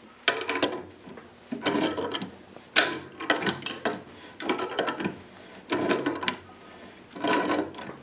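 Pipe wrench tightening a threaded valve fitting onto a metal pipe held in a vise: a run of metallic ratcheting scrapes and clicks, roughly one stroke a second, as the wrench is swung and reset.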